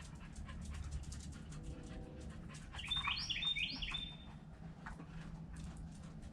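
A bird chirping a quick run of high notes about three seconds in.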